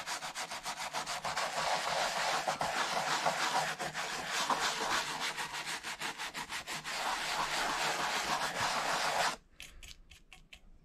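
Soft-bristle brush scrubbing saddle-soap lather into an old leather scabbard in rapid back-and-forth strokes. The scrubbing stops about a second and a half before the end, leaving a few faint taps.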